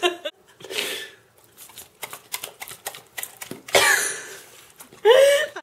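Pit bull chomping ramen noodles off a fork, a rapid, irregular run of wet smacking clicks from her jaws. Two short vocal sounds break in, about four and five seconds in.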